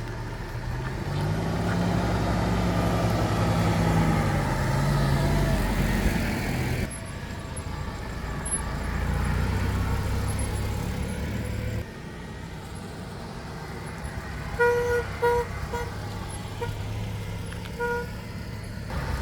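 A car engine runs and revs up and back down, then a car horn gives three short toots, two in quick succession and one a few seconds later.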